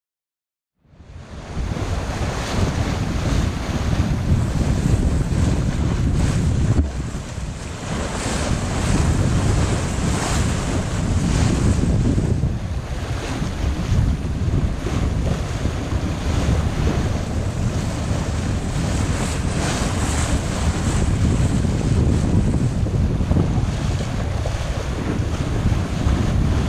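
Wind buffeting the microphone on the deck of a sailing yacht under way, with the sea rushing past the hull. It is a steady, rough rush that fades in about a second in and dips briefly twice.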